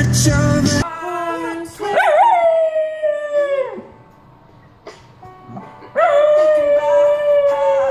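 Miniature schnauzer howling: two long, pitched howls. The first wavers at its start and slides down as it ends; the second is held steady. Loud pop music plays for the first second and cuts off abruptly.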